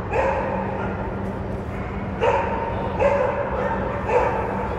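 A dog barking repeatedly, about four barks a second or so apart, over a steady low hum.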